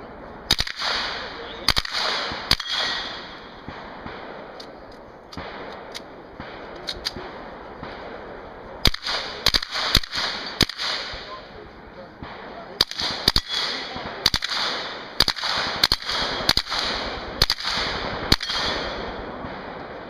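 Closed-bolt submachine gun firing short full-auto bursts, more than a dozen of them, with a lull of several seconds near the start and rapid strings of bursts through the second half.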